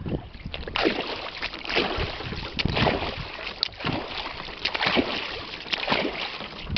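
Oars of an inflatable rowing boat splashing through the water, one stroke about every second.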